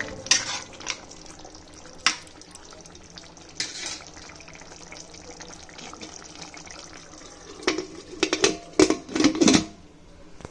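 Watery curry in a steel pressure cooker sloshing and bubbling, with a few scattered clinks of a steel spoon on the pot. About eight seconds in comes a quick run of loud metal clanks and scrapes as the cooker's lid is handled and fitted.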